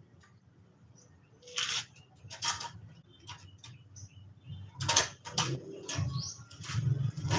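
Clothes being handled and shaken on a drying rack: a series of short swishes and rustles of cloth, a couple in the first half and more, closer together, in the second half.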